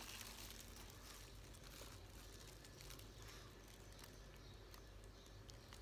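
Near silence: faint room tone with a few soft, short ticks.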